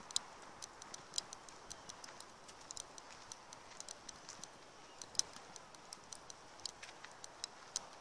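Footsteps on a dry dirt trail: faint, irregular light crunching clicks, several a second, over a low steady hiss.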